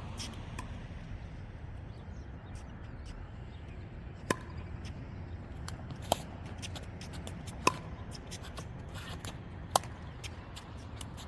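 Pickleball rally: four sharp pops of paddles hitting the hollow plastic ball, about one and a half to two seconds apart, over a low steady rumble.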